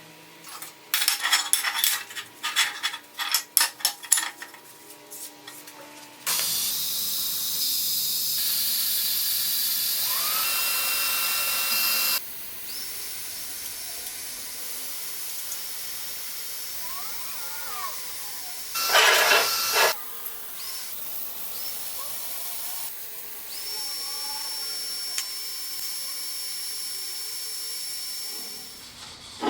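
Metal parts clinking and knocking for several seconds, then a steady hiss that is loudest for a few seconds, drops to a lower level and runs on, with one short louder burst about two-thirds of the way in.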